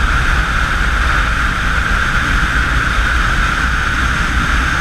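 Motorcycle at highway speed: a steady rush of wind over the microphone, with the engine running underneath.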